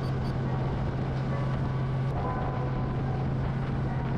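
Boat engine running at a steady pitch, with an even drone and no change in speed.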